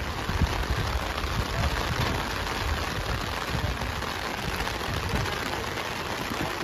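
Steady rain falling on an umbrella held over the phone: a dense, even hiss with an uneven low rumble beneath it.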